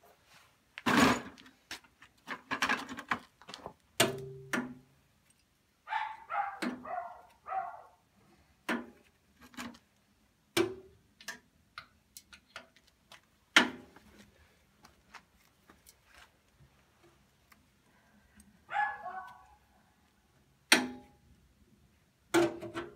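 Scattered sharp metallic clinks and knocks of a wrench and bolts against the tractor's steel parts during reassembly, with a short clattering run about six seconds in and another near the nineteen-second mark.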